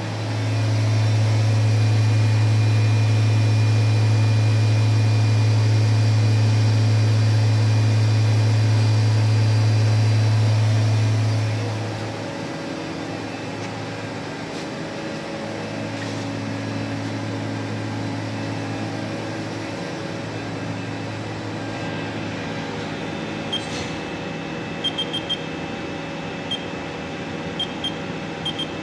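Haas VM3 vertical machining center's spindle running at about 6,500 RPM with a steady low hum, which cuts off about twelve seconds in and leaves a quieter machine hum that comes and goes. A few short beeps near the end.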